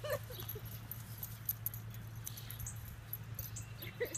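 Small dog giving a short bark at the start and another just before the end, over a steady low hum.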